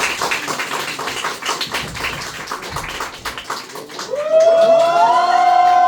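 Audience clapping and tapping. About four seconds in, several voices break into one long, loud, drawn-out cheer.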